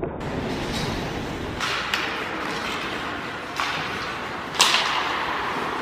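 Ice hockey play: skate blades scraping and stopping on the ice, with sharp cracks of sticks and puck. There are several sudden hits, and the loudest comes about three-quarters of the way through.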